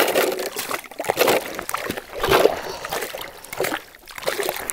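Lake trout splashing and thrashing in the water of an ice-fishing hole as it is pulled up on the line, in irregular splashes about a second apart.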